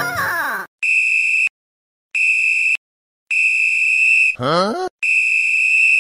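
A whistle blown in four short, shrill blasts of steady pitch, with full silence between them. A brief sliding vocal sound comes between the third and fourth blasts.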